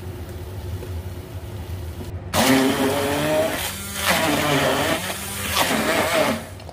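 Electric blender grinding fried shallots, garlic and ginger into a spice paste, switched on about two seconds in after a low hum and run in three bursts, its motor pitch wavering as it chops.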